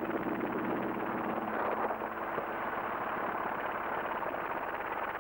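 Robinson R22 helicopter in cruise flight, heard in the cockpit: its four-cylinder piston engine and rotors make a steady drone with a constant hum.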